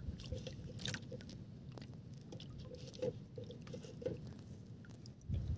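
Faint clicks, taps and rustling of hands handling fishing line and shrimp bait in a small wooden boat, with a run of short squeaks in the middle, over a low steady rumble.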